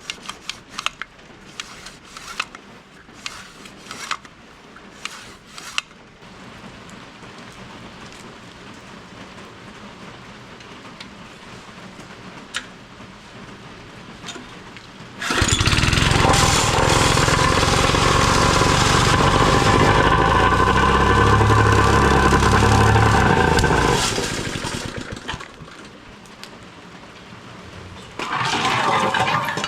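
Plate compactor's small petrol engine: a few light metal clinks, then the engine starts suddenly about fifteen seconds in, runs steadily for about nine seconds and dies away, with a short burst of running again near the end.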